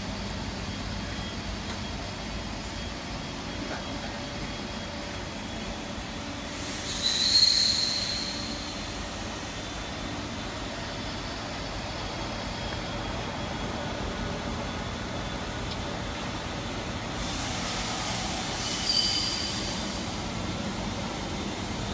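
Steady hum of running machinery, broken twice by a loud hiss with a high whistle in it, one about seven seconds in and one about nineteen seconds in.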